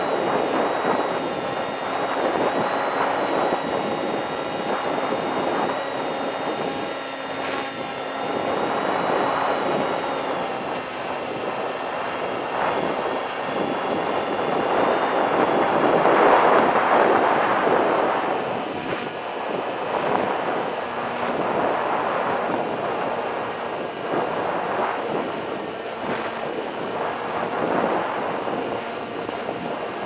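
Rushing wind on the onboard camera's microphone of a Bixler RC plane flying in strong wind, swelling and easing, loudest about halfway through. Beneath it the steady whine of the plane's electric motor and propeller shifts slightly in pitch.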